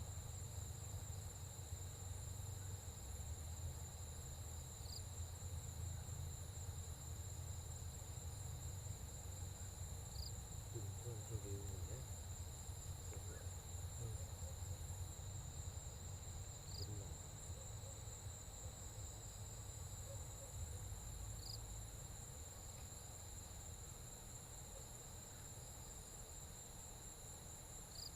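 Crickets trilling steadily, a continuous high-pitched chirring over a faint low rumble.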